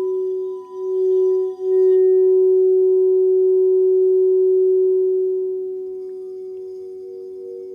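Several Crystal Tones alchemy crystal singing bowls ringing together in long, pure, overlapping tones. The tones waver at first, swell to a full ring about two seconds in and ease off after about five seconds, and a higher bowl joins near the end.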